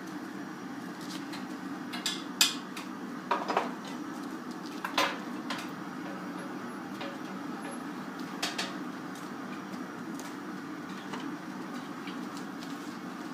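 Steel glassblowing jacks and blowpipe clinking as a hot glass bubble is opened and shaped at the bench: several sharp metal clinks, most of them in the first half, over a steady background hum.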